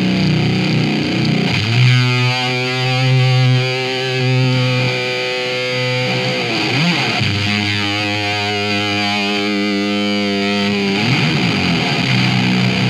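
Distorted electric guitar played through a RAT distortion pedal, with a breadboarded boost circuit and an octave-up pedal in the chain. It starts with chords, holds a long note about two seconds in, slides into a second long held note, then returns to chords near the end.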